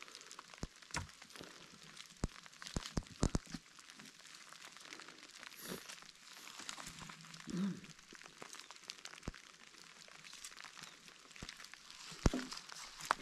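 Irregular snaps, clicks and crackling of wooden poles, twigs and dry leaf litter being handled while a shelter frame is fitted and lashed together. The snaps are thickest in the first few seconds, and there is a short vocal sound just past the middle.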